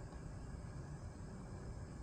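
Steady outdoor background noise: a low rumble under faint, even high-pitched tones, with no distinct sounds standing out.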